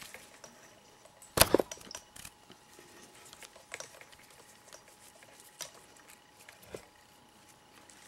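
Paracord being pulled through and worked around a plastic buckle clip by hand: faint rustling and handling, with one sharp click about a second and a half in and a few softer clicks later.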